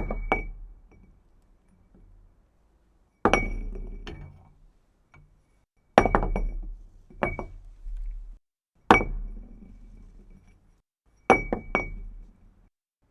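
A glass object dropped onto a hard surface five times, about every three seconds. Each drop lands with a sharp clink, bounces two or three more times with a ringing glassy ping, then rolls with a low rumble that fades out.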